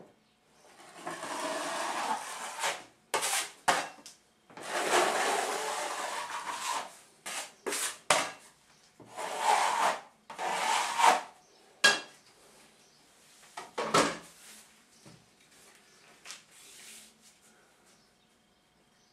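A wide knife spreading drywall joint compound along a ceiling crack: three long scraping strokes of about two seconds each, with sharp clicks and taps of the blade between them. It goes quieter for the last few seconds.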